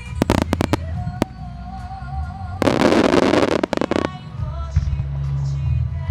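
Fireworks going off over a song: a quick run of about six sharp bangs in the first second, then a dense crackling burst lasting about a second and a half.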